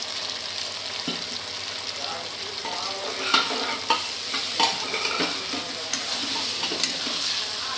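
Onion, garlic and chili paste frying in oil in a pan with a steady sizzle, stirred with a spatula that clicks against the pan about once a second in the second half.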